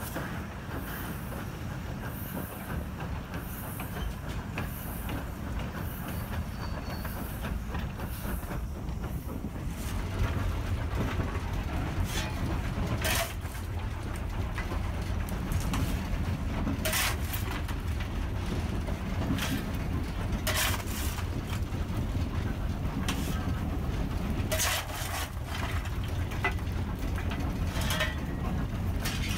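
Narrow-gauge steam locomotive running, first with a regular beat a little faster than once a second. From about ten seconds in, a heavier steady rumble from inside the cab, with scattered sharp scrapes and clanks of a steel coal shovel digging into coal and firing the firebox.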